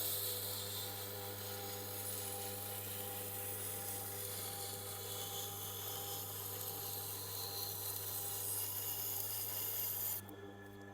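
Knife edge being ground on the Tormek T8 wet grinder's slowly turning stone: a steady scraping hiss over the grinder's motor hum, as the burr is raised. The scraping stops suddenly about ten seconds in, leaving only the motor hum.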